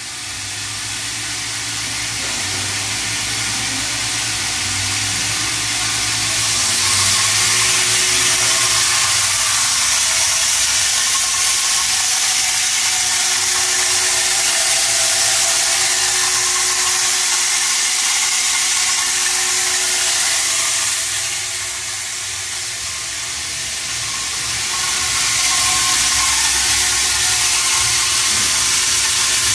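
Running noise of a Baird 16-station transfer press and its vibratory bowl feeder forming 9x19 mm pistol cases: a steady, loud mechanical hiss over a low hum. It builds over the first several seconds and dips for a few seconds about two-thirds of the way through.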